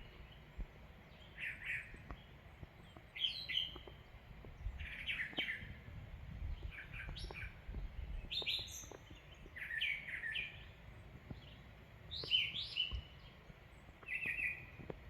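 Songbirds singing outdoors: short chirped phrases repeated every second or two, over a faint low rumble.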